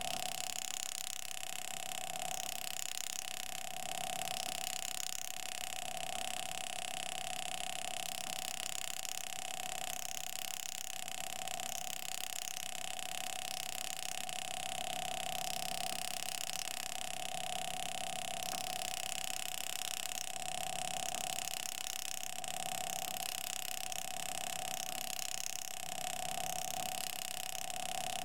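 A steady machine whine over a hiss, swelling and fading every few seconds.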